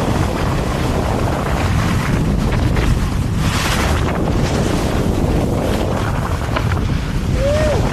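Wind buffeting the microphone while skiing, a steady low rumble, with a brief brighter hiss about three and a half seconds in.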